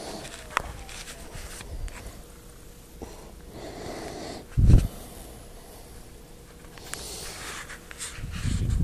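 Rubbing and bumping noises as a long-haired Persian cat presses its fur against the phone's microphone, with a loud bump about four and a half seconds in and a longer rumbling brush near the end.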